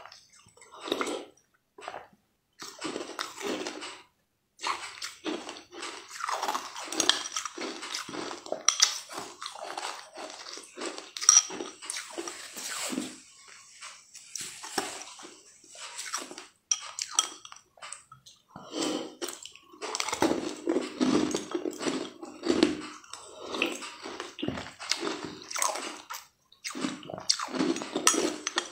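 Close-miked eating sounds: wet slurping, sucking and chewing of spoonfuls of a green liquid dessert with soft blue balls, in irregular bursts with short pauses.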